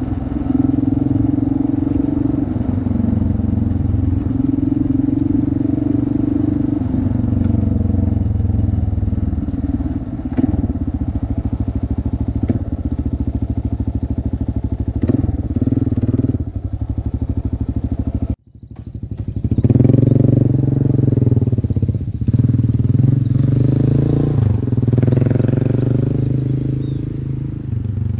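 Kawasaki KLR650's single-cylinder four-stroke engine running as the bike is ridden, with a few short knocks. The sound cuts out for an instant about two-thirds through, then the engine comes back louder, its pitch rising and falling with the throttle.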